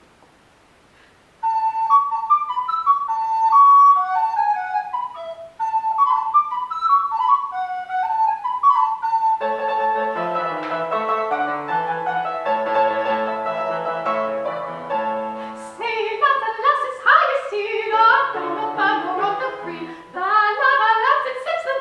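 An 1812 fortepiano plays the song's introduction. First comes a single melody line in the treble; about nine seconds in, fuller chords and a bass line join. A woman's voice enters singing about sixteen seconds in, over the fortepiano accompaniment.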